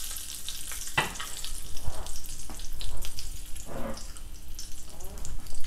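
Hot oil sizzling in a small tempering pan with mustard seeds, urad dal, asafoetida and curry leaves, with scattered irregular pops as the seeds and leaves splutter.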